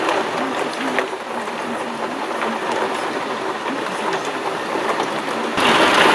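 Steady rain during a thunderstorm, with a faint low wavering hum underneath. Near the end the rain hiss becomes suddenly much louder.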